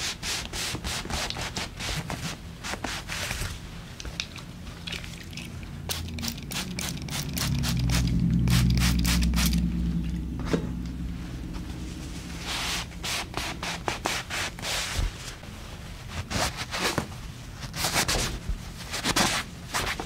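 A towel and hands rubbing and wiping oiled skin on the legs, heard as a long run of short brushing and scraping strokes. About halfway through a louder low rumble swells for a few seconds.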